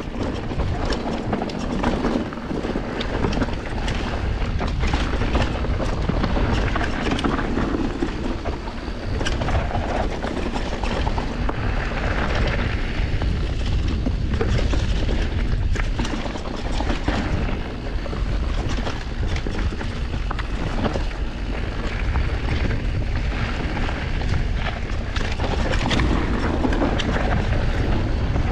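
Enduro mountain bike descending a rough trail: a steady low wind rumble on the microphone, with tyres on rock and gravel and frequent knocks and clatters from the bike over bumps.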